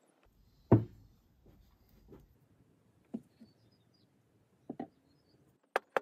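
One sharp knock a little under a second in, then a handful of lighter knocks and clicks: glued wooden parts and a plastic quick-release bar clamp being handled and set in place on a workbench.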